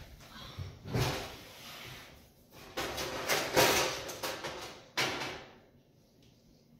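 Kitchen cabinets and cookware being rummaged through: clattering knocks and rattles in several bursts, busiest around the middle, then stopping about two seconds before the end.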